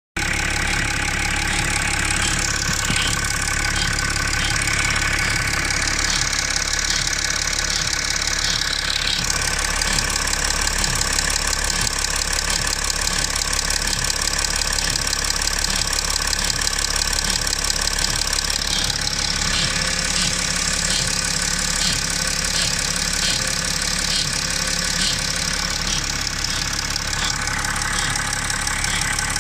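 BMW X5 E70 engine idling steadily, with a short quack-like chirp repeating about once or twice a second that comes and goes: an abnormal duck-like noise from the engine.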